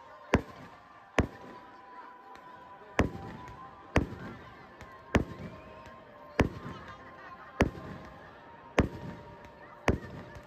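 Aerial firework shells bursting overhead in a steady barrage: a sharp bang about every second, some with a short echo after.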